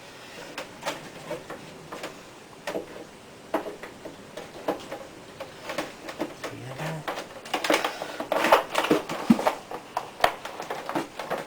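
Bait gun being squeezed to push stiff boilie paste out, its trigger clicking about once a second, with busier clicking and knocking near the end.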